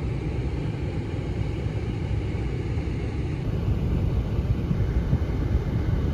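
Low, steady rumble of a car idling, heard inside the cabin while it warms up.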